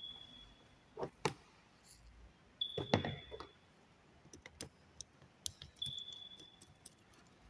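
Light handling clicks and knocks of a screwdriver and a green-and-yellow earth wire being picked up and pushed into a DIN-rail earth terminal block, the loudest knock about 3 seconds in. A short, faint, steady high tone sounds three times.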